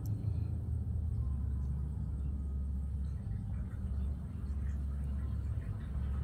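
Steady low background rumble with a faint high-pitched whine above it.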